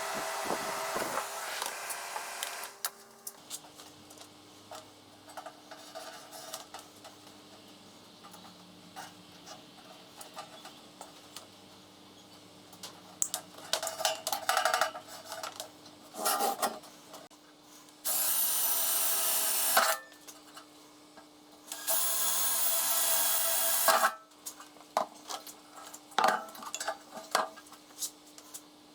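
Woodworking handling sounds: scraping, rubbing and knocks on wood over a faint steady hum. A power tool runs in two bursts of about two seconds each, about two-thirds of the way through.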